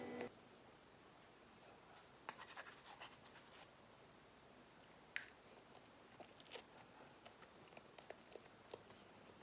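Faint, scattered small clicks and scratches over near silence, a few each second.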